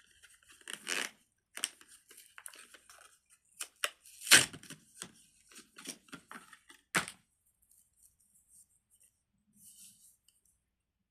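Plastic fidget toy being worked by hand: irregular crackling and clicking, with the sharpest snaps about four and seven seconds in, dying away after about seven and a half seconds.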